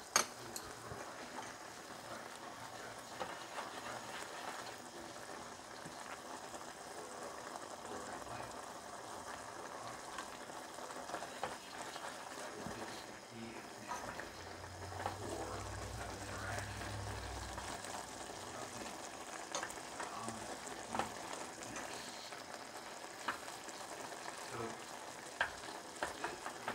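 Noodle soup simmering in a pot with a steady bubbling hiss while wooden chopsticks stir and lift the noodles, clicking against the pot now and then.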